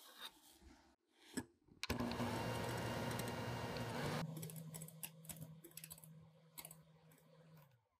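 Electric hand mixer whipping egg whites and sugar into meringue in a glass bowl, after a faint hiss of sugar being poured in. The motor starts about two seconds in and runs loudly, settles to a lower steady hum with many quick clicks at about four seconds, and stops just before the end.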